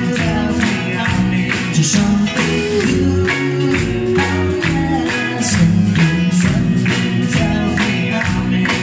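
Live 1960s-style beat band playing electric guitars, bass and drum kit, with a steady beat of about two strokes a second.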